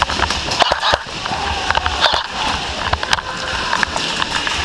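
Clatter of a player running with an airsoft gun: scattered clicks and knocks of gear and footsteps, with wind rumbling on the gun-mounted microphone.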